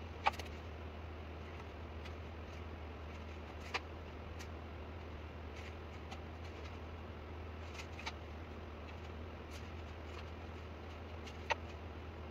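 Drawing with pencil and steel ruler on paper at a workbench: a few sharp taps and clicks of the tools being handled, over a steady low hum.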